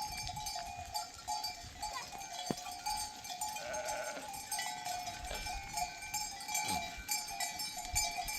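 Bells on a herd of sheep ringing and clinking continuously as the animals move, with a sheep bleating about four seconds in.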